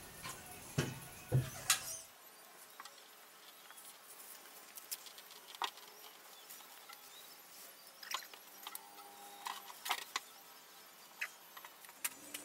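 Scattered crinkling, rustling and clicking of clear plastic masking sheet and tape being spread and smoothed over a windshield, with a few knocks and low thumps in the first two seconds.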